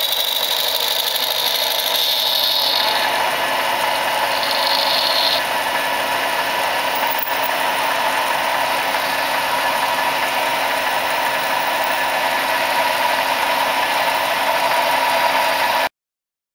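Micro lathe running steadily while a twist drill fed from the tailstock bores into a tiny model diesel engine piston, with a thin high hiss of cutting that comes and goes in the first few seconds. The sound cuts off abruptly near the end.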